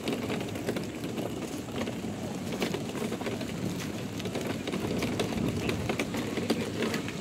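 Plastic pull wagon rolling over asphalt: a steady rumble of its wheels with many small rattling clicks.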